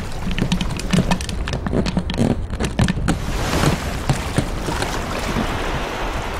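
Sound-effects track for a stop-motion animation: irregular clicks and knocks, several a second, over a steady rush of surf and wind.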